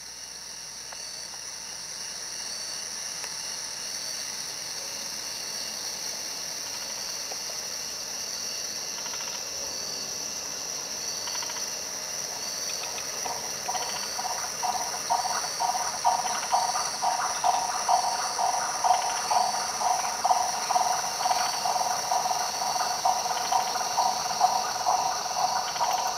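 Night chorus of insects trilling steadily and high. About halfway through it is joined by a louder, rhythmic pulsing call that repeats about twice a second and grows louder toward the end.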